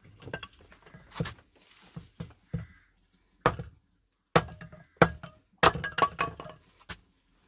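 Small pieces of cut-up old decking wood knocking and clattering together as they are handled, a series of sharp separate knocks, the loudest ones in the second half.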